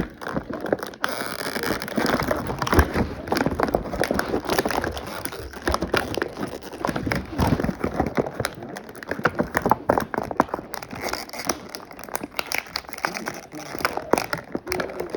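Plastic toy packaging crinkling and crackling as it is handled and opened, with many small clicks and rustles throughout.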